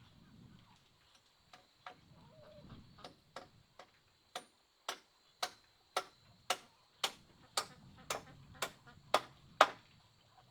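A series of sharp knocks at a steady pace of about two a second, getting louder near the end, after a few weaker, irregular taps.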